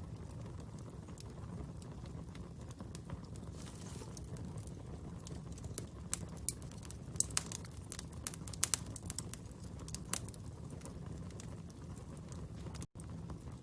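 Wood fire crackling: a steady low rumble of flames with scattered sharp pops and snaps, coming thicker for a few seconds in the middle. The sound drops out for an instant near the end.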